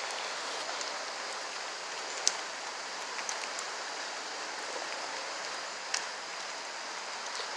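Steady rain falling, with a few sharper drops ticking close by, one about two seconds in and another near six seconds.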